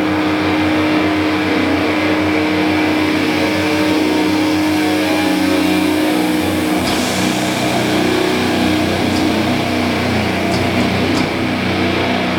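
Doom metal band playing live: heavily distorted guitars and bass hold a long droning chord that shifts about seven seconds in, with a few sharp cymbal hits in the second half.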